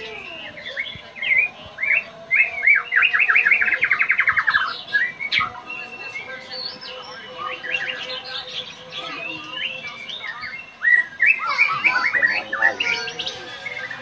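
White-rumped shama singing a varied song of quick whistled phrases. About three seconds in comes a fast rattling run of falling notes, and a further burst of phrases follows near the end.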